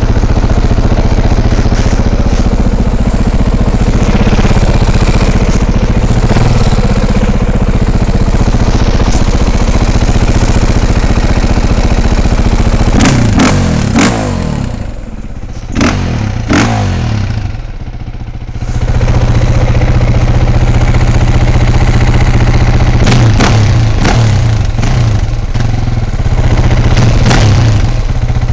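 KTM 450 dirt bike's single-cylinder four-stroke engine running at low revs inside a corrugated steel culvert. Short throttle blips come about halfway through and again near the end, with a quieter stretch between them.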